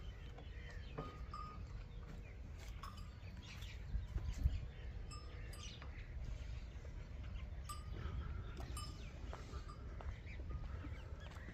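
Quiet animal-pen ambience: a low rumble, with brief high chirps now and then and a few soft knocks about four seconds in.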